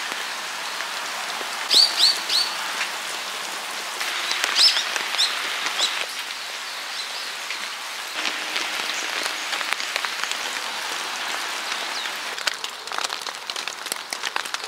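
Steady rain falling, with a small bird chirping a few short calls about two seconds in and again around four to six seconds in. Near the end, drops patter more closely on the tent.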